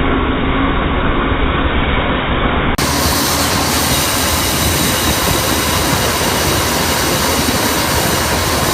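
REM Grain Vac VRX pneumatic grain vacuum running under load: a steady, loud, even rush of blower noise. About three seconds in it turns brighter and hissier.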